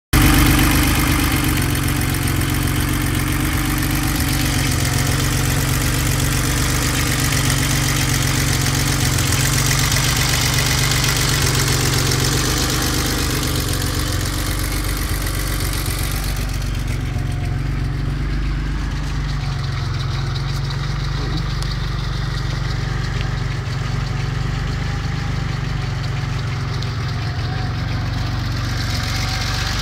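Car engine and exhaust of a BMW 327i idling steadily, with a low, even exhaust note. A hiss over the engine fades about halfway through.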